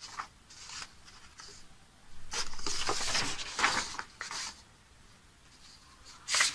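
Paper rustling and sliding as the pages of a poster booklet are handled and turned, with a longer rustle about two seconds in and a few shorter scrapes around it.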